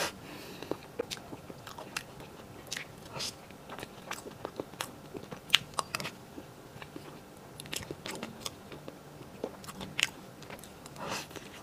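Close-miked mouth sounds of someone eating soft cream cake: wet chewing and lip smacks with irregular short, sharp clicks.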